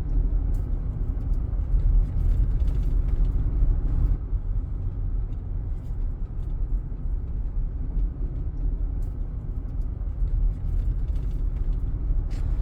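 Car driving: a steady low road-and-engine rumble that cuts off suddenly at the end.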